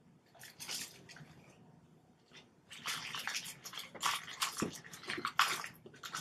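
Handling noises of leaf printing: soft rustles and scrapes as a paint-covered leaf is pressed onto paper and lifted off, then a quick run of short scuffs and rustles in the second half as the hand reaches for the cotton buds.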